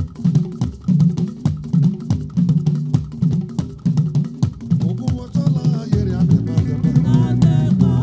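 Live band music: a drum kit playing a steady, busy groove over a repeating bass line, with a wavering melodic line joining in about five seconds in.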